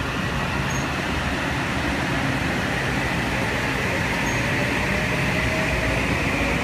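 Electric train running at the station: a steady mechanical hum and rumble, with a faint electric whine that rises slightly in pitch from about halfway through.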